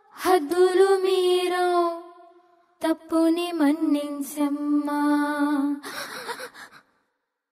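A woman singing a slow melody in long held, wavering notes, in two phrases with a short pause about two and a half seconds in; the singing stops short near the end.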